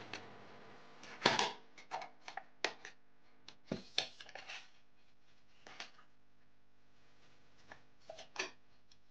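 Small paperboard box being opened by hand: scattered crinkles, scrapes and sharp clicks as the cardboard flaps are pulled up and folded back, the loudest bursts a little over a second in, around four seconds in and near the end.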